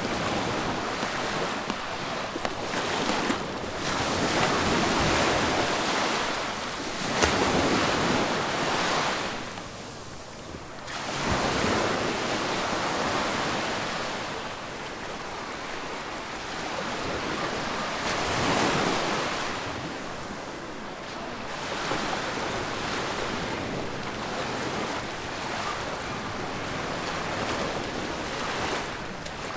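Sea waves washing onto a sandy beach, swelling and fading every few seconds, with wind blowing across the microphone.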